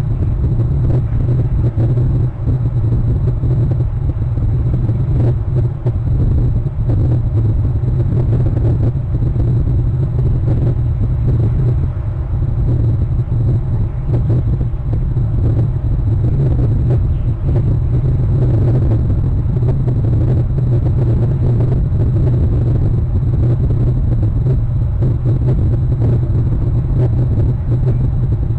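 A steady, loud low rumble with no separate events.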